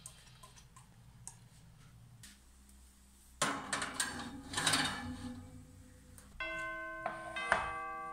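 A few faint taps, then about three and a half seconds in a metal springform pan is set and slid onto a wire oven rack, a couple of seconds of metal scraping and rattling. Near the end, several bell-like chime notes ring out.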